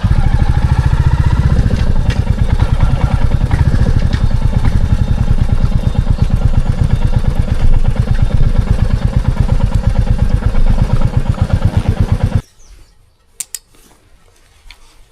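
Royal Enfield Classic 350's single-cylinder engine running under way, its exhaust a loud, rapid, even thumping with a rising tone at the start as it pulls away. The engine sound cuts off suddenly near the end, leaving quiet with a few light clicks.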